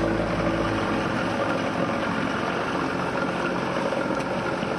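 A sailboat's inboard engine running steadily under way, under a continuous rushing noise.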